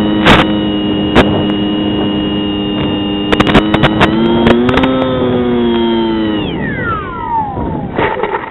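Bixler 2's electric pusher motor running with a steady whine, lifting a little in pitch, then winding down in a long falling whine as the throttle is cut for landing. Sharp crackles from radio-link interference are scattered through it, and a short noisy burst comes near the end as the plane touches down in the grass.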